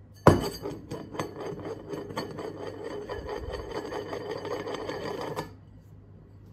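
A small machine or hand tool clattering rapidly, with a sharp knock at the start and heavier knocks every half second or so, stopping suddenly about five seconds in.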